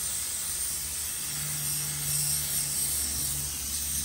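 Airbrush spraying paint: a steady hiss of air, with a low hum coming in about a second in.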